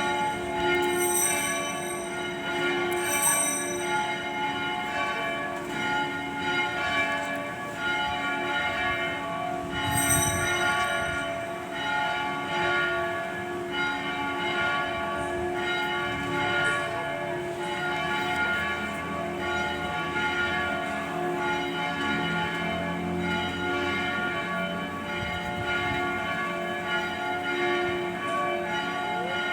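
Several church bells ringing continuously, their tones overlapping, with a few sharper strikes standing out. They are rung to mark the consecration of the bread and wine at Mass.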